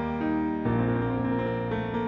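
Calm background music on a keyboard instrument, slow sustained notes and chords with a low bass line that changes about two-thirds of a second in.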